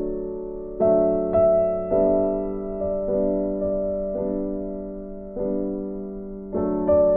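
Background music: slow, gentle piano, with notes struck about once or twice a second and left to ring and fade.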